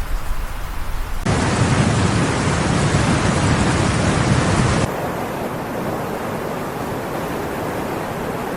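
Steady rushing noise of floodwater, in three abruptly cut stretches: the middle one, from about a second in to about five seconds, is louder with a deep rumble.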